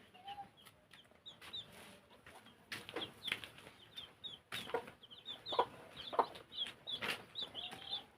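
Domestic chickens clucking in short separate calls, more often in the second half, with many short high chirps throughout.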